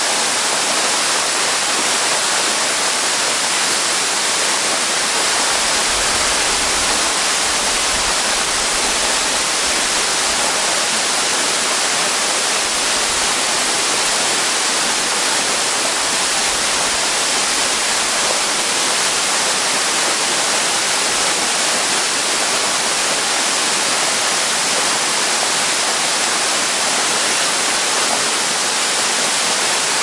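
Waterfall spilling onto rock ledges: a steady, even rush of falling water.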